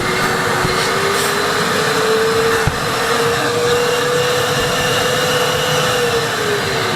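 Euroclean WD X2 wet-and-dry vacuum cleaner running at full power. Its motor whine rises in pitch as it spins up over the first couple of seconds, holds steady, then drops as it slows near the end. A single short click comes partway through.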